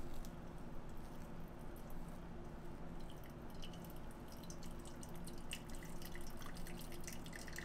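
Hot water from a gooseneck kettle trickling in a thin stream onto coffee grounds in a paper cone filter: the first, blooming pour that wets the grounds. It is faint and steady, with small scattered drips and ticks from about three seconds in.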